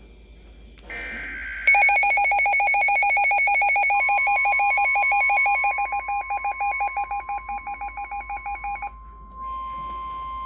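A weather radio receiving an alert. It opens with the end of a short two-tone digital data burst. About two seconds in, the Midland WR-100's own loud warbling alert alarm starts, turns choppy partway through and stops about nine seconds in. From about four seconds in, the station's steady 1050 Hz warning alert tone sounds under it and carries on alone through the radio's speaker hiss.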